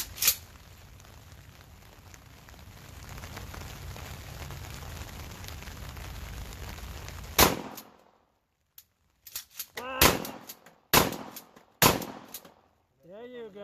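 12-gauge pump-action shotgun fired several times, sharp loud reports with gaps between them, and the clack of the fore-end racked between shots to eject the spent shell.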